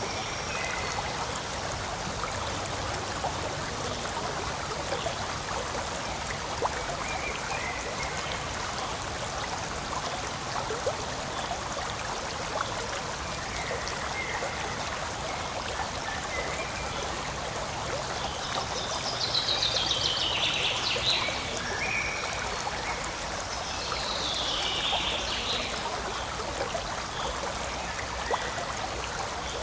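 Forest stream flowing and trickling over rocks in a steady, continuous rush, with two brief falling high notes a little past the middle.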